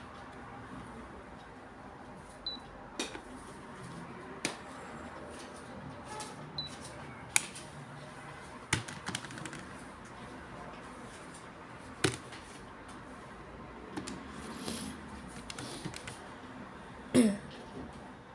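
Keys of a large Casio desktop calculator being pressed: scattered single clicks a second or two apart, with a louder knock near the end.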